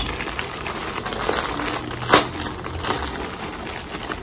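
Plastic poly mailer bag crinkling and rustling as it is handled, with a sharper crackle about two seconds in.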